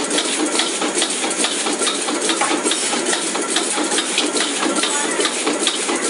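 Metal spatula of a mechanical wok-stirring arm scraping and knocking against a steel wok as it tosses food, a rapid, irregular clatter over a steady rushing noise.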